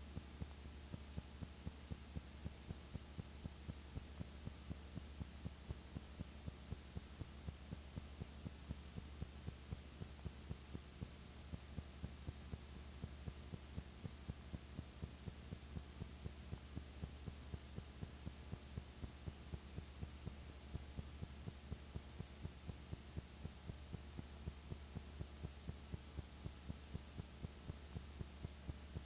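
Steady low electrical hum with a regular soft throb, about two to three pulses a second, unchanging throughout.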